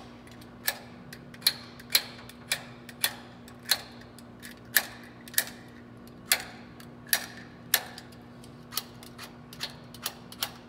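Knife blade scraping leftover foam dielectric off the copper center conductor of .750 P3 coax cable, in short, sharp strokes about one and a half a second, irregularly spaced. This cleans the conductor bare and shiny so the connector's jaws make good contact.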